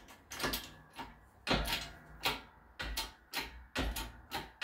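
Hand-pumped hydraulic shop press working its ram down: a series of sharp metal clanks and knocks, about one to two a second, as a tight-fitting steel sleeve is forced through the bore of a cast shift-linkage part.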